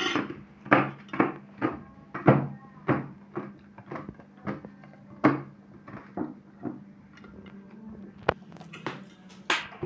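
Knife chopping hazelnuts on a cutting board: a run of sharp knocks about two a second, thinning out in the second half, over a faint steady low hum.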